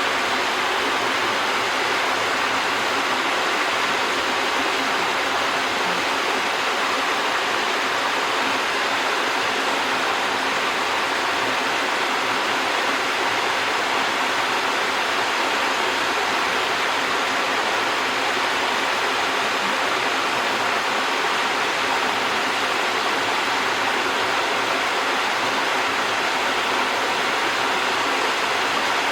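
Small waterfall and stream running over rocks: a steady, even rush of water.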